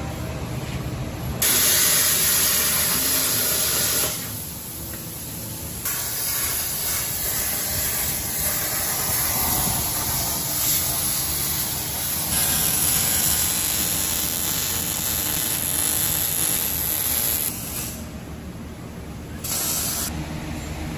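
Angle grinder cutting into the van's steel frame, a steady hissing grind. It is broken twice by short quieter gaps.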